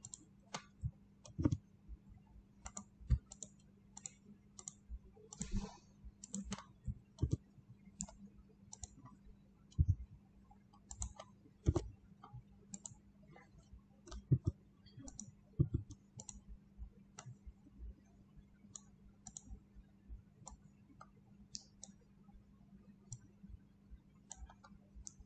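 Computer mouse clicking irregularly, roughly one or two clicks a second with short pauses, over a faint steady low hum.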